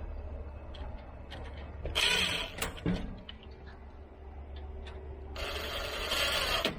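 Hardware being handled: scattered clicks and two stretches of rustling, sliding noise, a short one about two seconds in and a longer one near the end, over a steady low hum.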